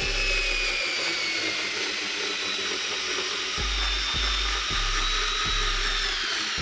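Xiaomi Mi Cordless Screwdriver (3.6 V) running continuously as it drives a larger screw into particleboard. Its motor whine falls slowly in pitch and stops at the very end. A low pulsing bass beat of background music runs underneath.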